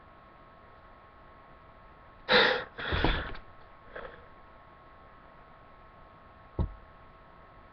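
A man sneezing: a loud burst about two seconds in, then a second burst right after it, and a faint sound a second later. A single short knock near the end.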